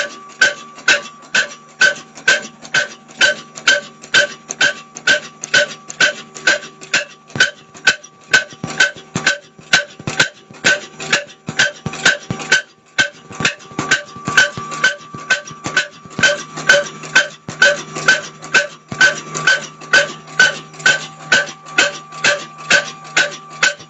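Background music with a steady beat of short punchy hits, about two a second, over held tones.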